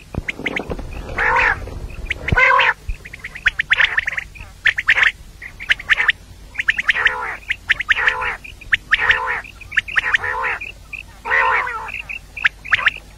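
Female common quail calling: short nasal calls repeated about once a second, with sharp little clicks between them.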